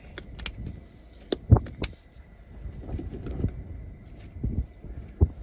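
Sharp clicks and knocks of spice containers and a cooking utensil being handled while seasoning ground beef in a pan, the loudest knock about a second and a half in, over a low rumble of wind on the microphone.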